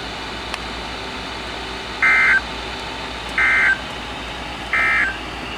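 Three short bursts of Emergency Alert System digital data tones, each a fraction of a second long and evenly spaced, over a steady hiss. These are the end-of-message code that closes a weather alert broadcast.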